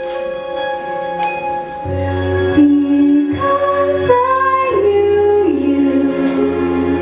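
A woman singing a slow, held melody over sustained instrumental accompaniment, with a deep bass note entering about two seconds in.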